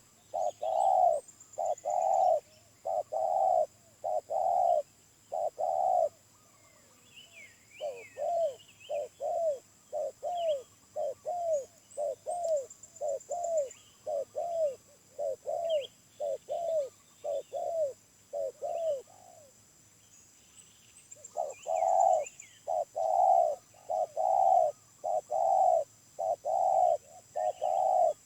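Spotted dove (tekukur) cooing: a run of repeated low coos, a pause about six seconds in, then a quicker run of shorter coos, another short pause near twenty seconds, and fuller coos again. Small birds chirp faintly behind it.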